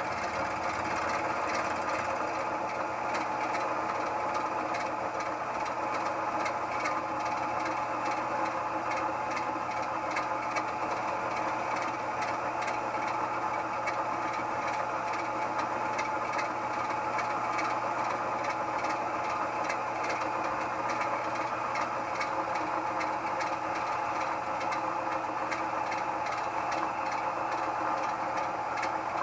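Harbor Freight mill-drill-lathe combination machine running steadily with its spindle turning a fly cutter across a workpiece, a constant motor-and-gear tone with a fast, light, even ticking over it.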